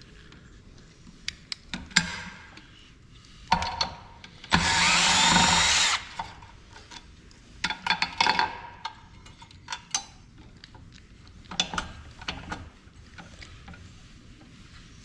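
Clicks and knocks of parts being handled during a printer teardown, with a handheld power tool running in one loud burst of about a second and a half, a little past a third of the way in.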